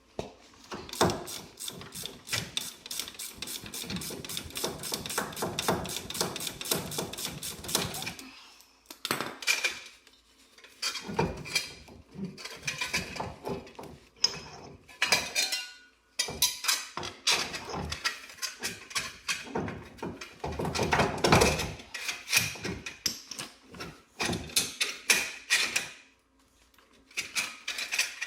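Hand-tool work on a truck's front wheel hub and dust shield: a long run of rapid metal clicking, then scattered metal clanks and knocks as parts are handled.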